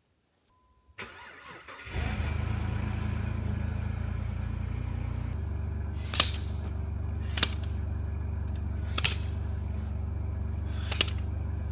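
Jeep engine cold-started in deep frost: a brief crank of about a second, then it catches and settles into a steady idle, its note changing about five seconds in. Four sharp knocks sound over the engine in the second half.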